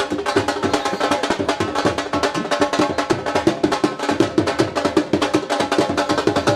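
Drums played in a fast, dense rhythm, stroke after stroke without a break.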